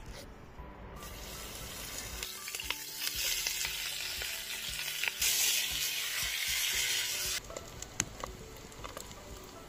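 Cubes of pork belly sizzling in hot oil in a cast-iron pot. The sizzle swells about three seconds in, is loudest a little past the middle, then drops off suddenly about two seconds before the end.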